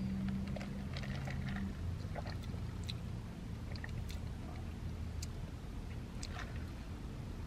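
Faint sipping and mouth sounds as an iced drink is tasted from a plastic cup, with scattered small clicks, over a low steady hum in the car cabin.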